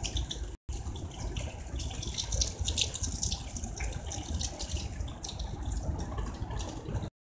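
Rain, a steady rushing and crackling water noise. It drops out for an instant a little over half a second in, then cuts off abruptly near the end.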